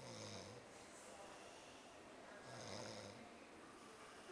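A man snoring in his sleep: two snores, one right at the start and one about two and a half seconds in, each a short low buzzing tone with a hiss above it.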